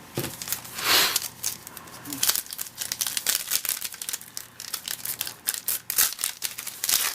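Plastic-foil wrapper of a baseball card pack being torn open and crinkled in the hands, in a run of irregular crackles with a louder rustle about a second in.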